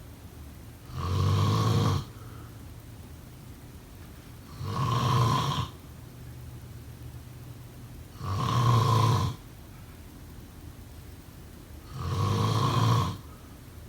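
A person snoring: four snores about three and a half seconds apart, each lasting about a second.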